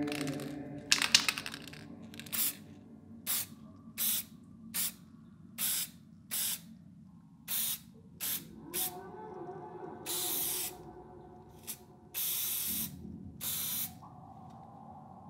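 Aerosol spray-paint can spraying in short hisses, about a dozen quick squirts as letters are painted, then three longer sprays near the end. A brief clatter about a second in.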